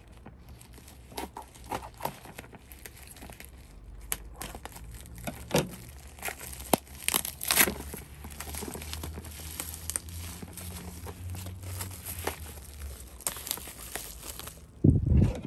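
Plastic courier mailer and bubble wrap being torn open and crumpled by hand, with irregular crinkling and tearing throughout and a louder thump near the end.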